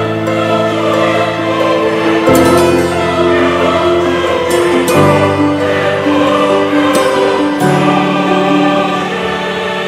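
Background music: a choir singing long held chords that change about every two to three seconds.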